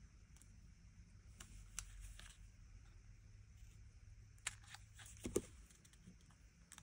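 Faint, quiet rustles and clicks of cardstock being handled and trimmed with scissors, with a louder knock about five seconds in as the scissors are put down on the craft mat.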